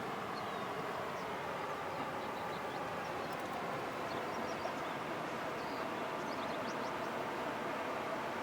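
Steady rushing of flowing water from a canyon creek, with a few faint bird chirps over it.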